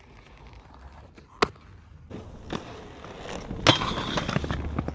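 Aggressive inline skates on concrete and rails: a sharp knock of the skates landing about a second and a half in, a lighter knock about halfway, then a louder scraping grind near the end.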